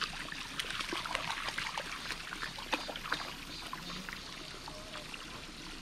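Shallow pool water splashing lightly and trickling around a Boston terrier's legs as it wades, with many small splashes over a steady trickle.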